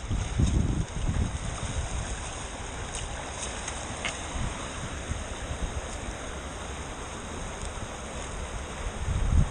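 Fast-flowing river rushing steadily, with low rumbles of wind buffeting the microphone about half a second in and again near the end.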